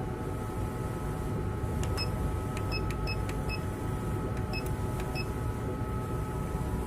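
Graptech cutting plotter running a cut at its highest speed: a steady motor whine over a low rumble, with a series of short high chirps and clicks from about two to five seconds in.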